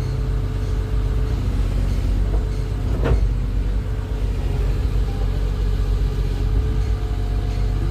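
Kato HD1023-LC excavator's diesel engine running steadily, with a single clank about three seconds in.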